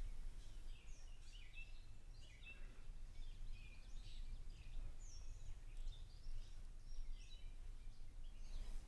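Outdoor ambience: small birds chirping and calling on and off in the surrounding trees, over a low steady background rumble.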